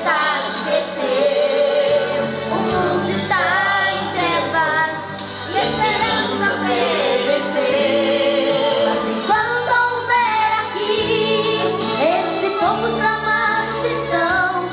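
Two young women singing a Portuguese gospel hymn as a duet through a PA system, over an instrumental accompaniment with a steady bass line.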